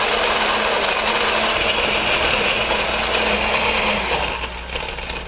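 Countertop blender running, blending ice and water into a frozen fruit drink; the motor winds down and stops about four seconds in.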